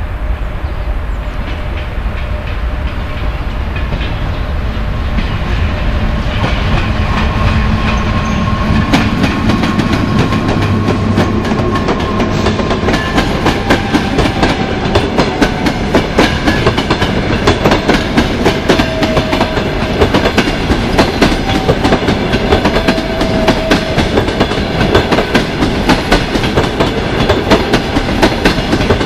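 EP1M electric locomotive and its passenger coaches rolling past. A low rumble comes first, then from about nine seconds in the fast, rhythmic clickety-clack of the coach wheels over the rail joints.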